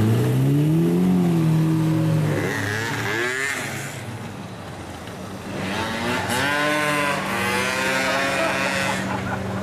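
Lamborghini Murciélago's V12 revving as it pulls away, its pitch climbing over the first two seconds. After a quieter dip, engines rev hard again from about halfway through, with sweeping rises and falls in pitch.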